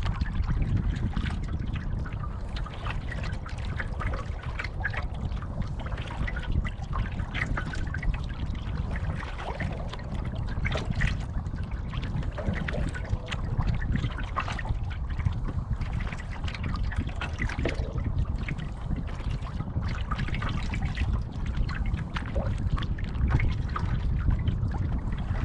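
Small choppy waves lapping and trickling against a moving canoe, with many small irregular splashes over a steady low rumble.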